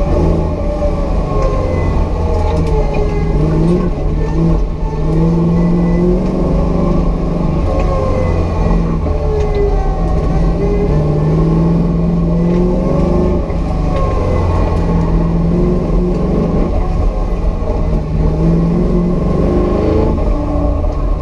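Engine of a 1972 Chevrolet Nova Pro Touring car, heard from inside the cabin during a hard autocross run. The revs climb and drop again and again as the car accelerates, slows and shifts through the course.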